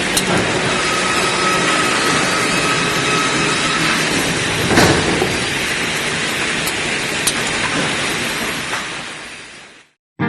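Industrial wood-processing machinery running, a dense steady clatter and rumble with scattered sharp knocks and one louder knock near the middle, fading out about nine seconds in.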